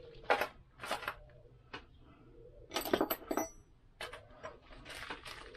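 Small metal parts and hand tools clinking on a workbench: a handful of sharp separate clicks, with a short cluster about three seconds in that leaves a brief metallic ring.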